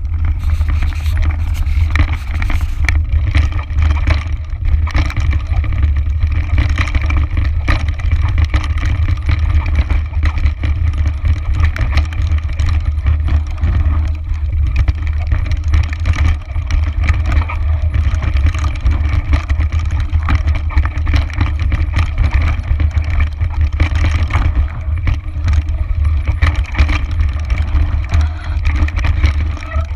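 Mountain bike descending a rocky trail: a steady stream of rattles, clatters and knocks as the tyres and frame go over stones and loose rock, under a heavy rumble of wind buffeting the microphone.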